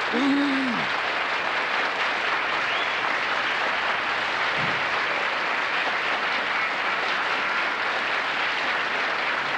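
Studio audience applauding steadily as the mystery guest signs in, with one voice briefly calling out near the start.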